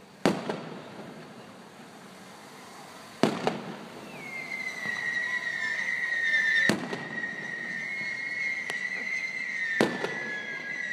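Aerial firework shells bursting: four loud bangs about three seconds apart, the second followed by a brief crackle. From about four seconds in, a steady, slightly wavering high whistle carries on over the bangs.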